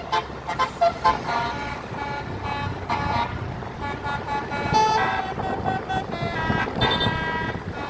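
Bus telolet musical air horn playing a run of notes, quick short ones giving way to longer held ones, over a low rumble.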